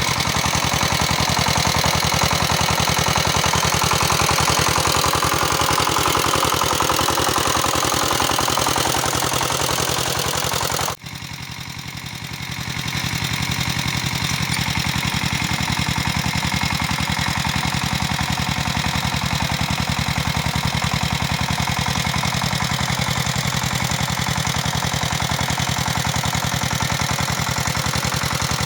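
Walking tractor's engine running steadily with a fast, even pulse as it pulls a disc plow. The sound breaks off abruptly about eleven seconds in, comes back quieter, and builds back up over the next couple of seconds.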